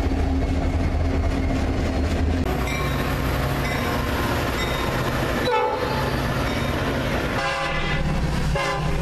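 A run of short clips of diesel locomotives and trains passing, the engines rumbling and the cars rolling on the rails. Near the end a multi-chime locomotive horn sounds a chord, with a short break before it sounds again.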